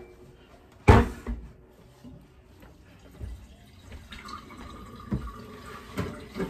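Household items being moved and set down on a kitchen counter: a sharp knock about a second in, then several softer clunks.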